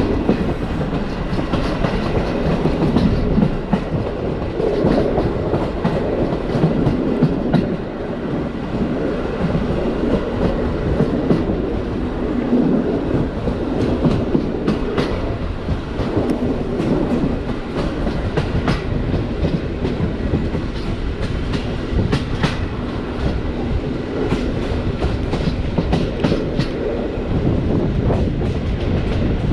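Passenger train coach running along the track, heard from its window: a steady rumble with irregular clicks and knocks of the wheels over the rail joints.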